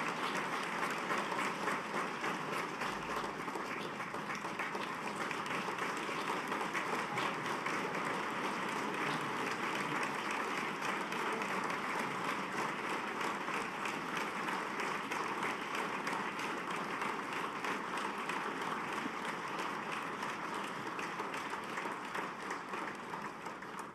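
Audience giving a long standing ovation: dense, steady clapping from a large crowd, easing slightly and dying away near the end.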